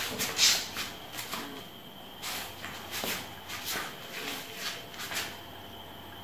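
Short hissy rustles and breaths, about one a second, from a man flexing through bodybuilding poses, over a faint steady high-pitched whine.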